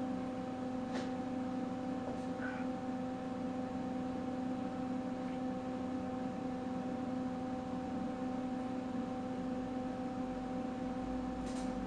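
Steady electrical hum made of a few pure tones, with a couple of faint clicks near the start.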